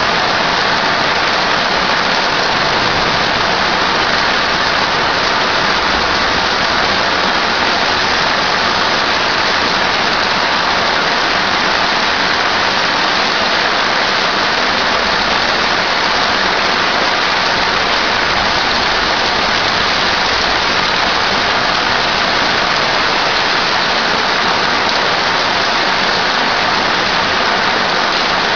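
Heavy thunderstorm downpour: rain pouring steadily onto a flooded street and pavement, an even, unbroken hiss.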